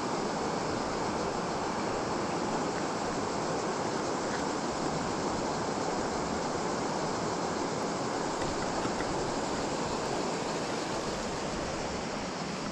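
Flowing river water rushing steadily, an even hiss with no breaks.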